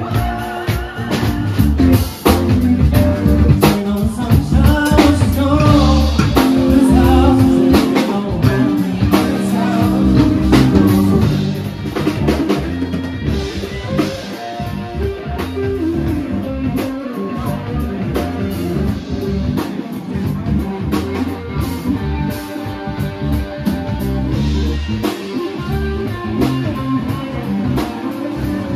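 Band music with a singer over drums and guitar, louder for the first dozen seconds and then a little softer.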